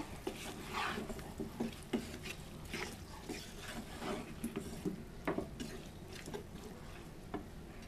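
A spatula stirring and scraping small chicken pieces and potatoes through spice paste in a cooking pot, in uneven strokes.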